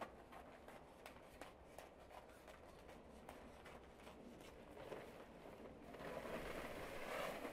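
Faint rustling and light clicks of materials being handled on a worktable, then louder crinkling of aluminium foil near the end as it is pulled out from under the table.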